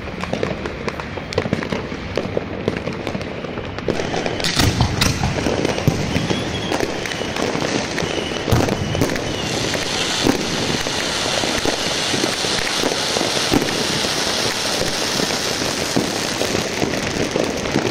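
Aerial firework shells firing and bursting, with many overlapping bangs and pops that get louder about four seconds in. From about ten seconds in, a thick, continuous crackle of crackling stars joins them.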